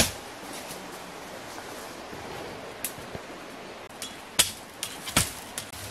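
Sharp woody cracks and knocks from bamboo stalks being worked by hand in a thicket, over a steady outdoor hiss. There is one crack right at the start, a lighter one about three seconds in, and two loud ones close together near the end.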